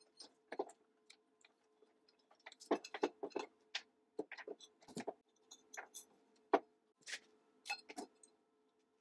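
Irregular clicks, taps and knocks from handling a grey metal wiring-box cover on a spot welder, with its wires and power cord shifting against it. The knocks are thickest and loudest around the middle. A faint steady hum runs underneath.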